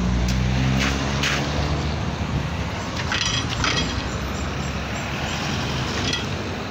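Street traffic: a car engine running and pulling through the junction for the first second or so, then the steady road noise of passing vehicles, with a few short clicks.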